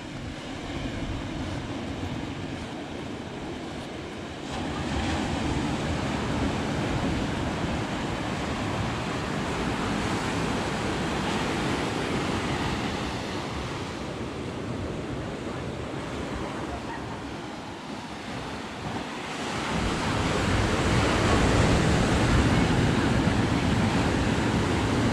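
Ocean surf breaking on a sandy beach, a steady wash of waves that swells about four seconds in and again, loudest, near the end.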